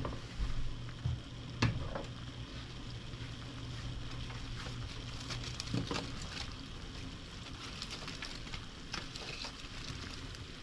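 A large steel pot of sour fish soup (canh chua) hissing at a simmer, with scattered soft clicks and plops as sliced bạc hà (giant taro) stems are dropped in by hand. A low hum underneath stops about six seconds in.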